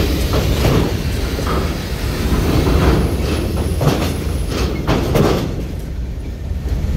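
Heavy trucks rolling off a ferry's steel loading ramp: a steady low engine rumble with repeated, irregular metallic clanks as the wheels cross the ramp plates.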